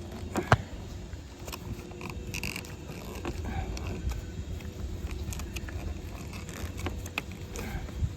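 Wire harness and plastic interior trim being handled: scattered rustles and small clicks as the wire is worked through a tight hole, with one sharp click about half a second in.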